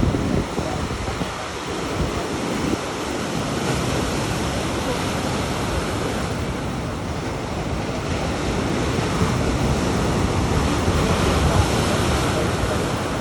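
Heavy storm surf breaking and washing in a steady, continuous rush, with wind buffeting the microphone.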